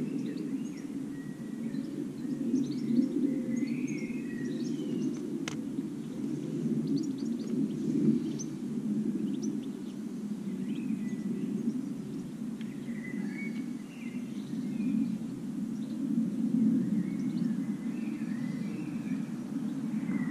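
Small birds chirping on and off over a steady low rumble, with one sharp click about five and a half seconds in.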